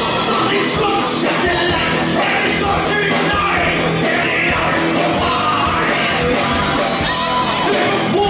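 Live rock band playing loud through a PA, with drum kit, electric bass and electric guitars, and a male lead vocalist singing into a microphone.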